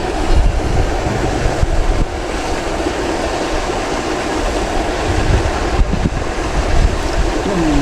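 Wind buffeting the microphone: a loud, steady low rumble with gusty fluctuations.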